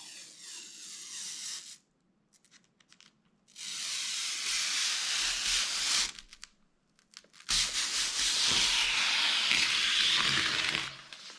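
Packaging being torn open by hand in three long tearing, rubbing bursts.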